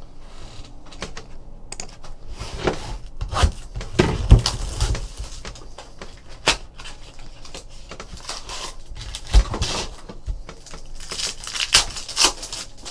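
Hands opening a small cardboard box and peeling a foil wrapper off a pack of trading cards: irregular clicks, taps and crinkles, with sharper bursts several times.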